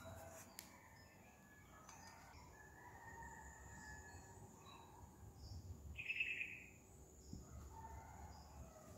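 Faint birds chirping, scattered short calls over a quiet background, with one louder short trilled call about six seconds in.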